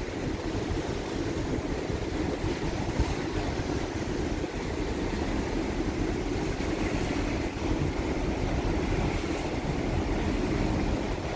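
Steady low rumble of the ferry MV Blue Puttees under way, mixed with wind buffeting the microphone on the open deck.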